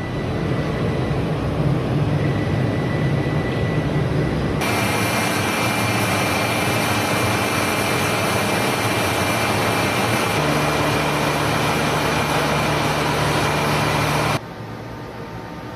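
Steady running noise of a timber-drying kiln's fans and plant, a low hum at first. About four and a half seconds in it turns into a louder steady rush with a high whine, then drops suddenly to a quieter hum near the end.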